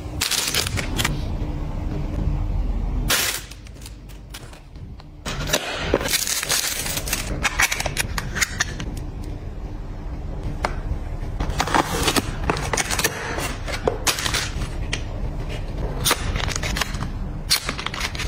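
Close-up handling of cosmetics and their packaging: a run of sharp clicks, taps and crackles from cases, bottles and boxes being picked up, opened and set down, with a quieter stretch a few seconds in.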